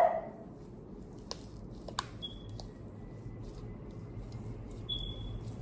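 A dog barks once at the start, then slime is squished and worked by hand, with a few soft clicks and two brief high squeaks over a low hum.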